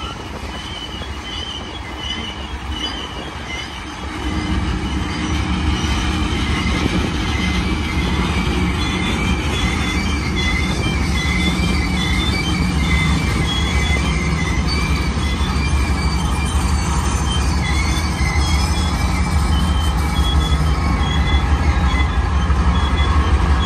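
Freight train rolling past, its wheels squealing on the rails, with a heavy diesel rumble from Union Pacific helper locomotives that grows louder about four seconds in as they draw near.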